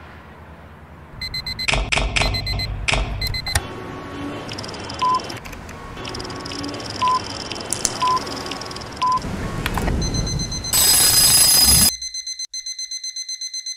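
Busy city traffic din with short horn blasts, building to a loud burst that cuts off abruptly about two seconds before the end. It gives way to a digital alarm clock beeping rapidly and evenly.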